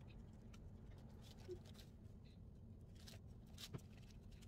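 Near silence: room tone with a few faint soft clicks and rustles, the clearest about three and a half seconds in.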